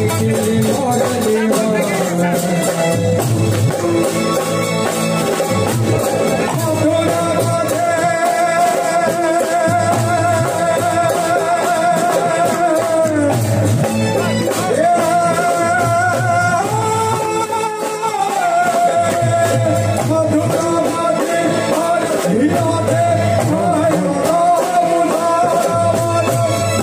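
Gujarati raas kirtan performed live: a male singer on a microphone sings long, wavering held notes over keyboard and drums keeping a steady beat.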